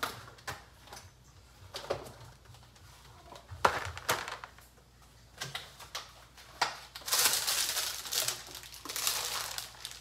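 Plastic food packaging crinkling and rustling as groceries are handled, with scattered knocks and clicks of items being picked up and set down, and a longer stretch of rustling about seven seconds in.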